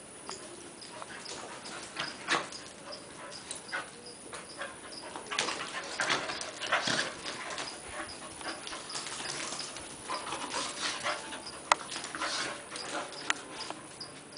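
Two dogs, a red heeler type and a miniature schnauzer, play-wrestling: uneven bursts of scuffling and huffing dog noises, busiest in the middle and again toward the end, with one sharp click about three-quarters of the way through. An insect chirps steadily about twice a second underneath.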